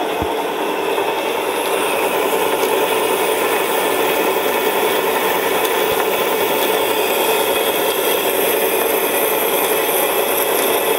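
Vintage DoAll vertical bandsaw blade cutting through a metal bar, a steady sawing noise that grows a little louder about two seconds in as the cut proceeds.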